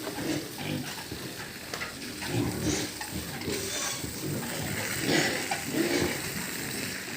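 Pigs grunting, a string of short irregular grunts.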